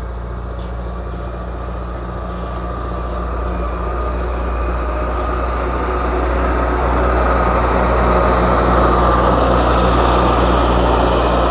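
Engine of a large paddy-field earthmoving machine running steadily, growing louder over several seconds and then holding level.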